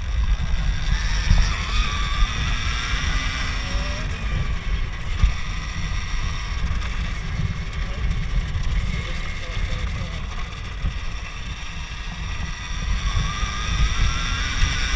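Electric dirt bike motor whining as it climbs a dirt trail, its pitch rising and falling with the throttle. Under it is heavy wind buffeting on the microphone and tyre rumble on the dirt.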